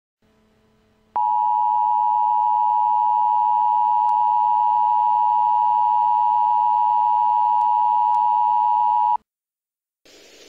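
Emergency Alert System attention signal: one loud, steady tone held for about eight seconds over a faint hum, then cut off sharply. Near the end, the hiss of the broadcast audio comes in.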